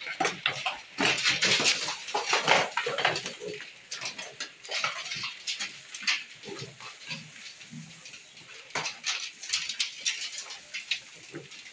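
A group of young pigs eating dry mixed feed at a trough feeder: irregular crunching, snuffling and clattering of snouts against the feeder.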